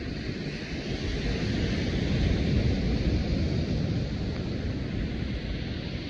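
Wind buffeting the microphone in a low, uneven rumble, strongest a couple of seconds in, over a steady higher hiss of wind and surf.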